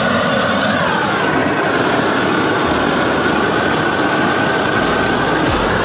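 A loud machine running steadily, a constant whine over a noisy rush, typical of a workshop power tool or compressor.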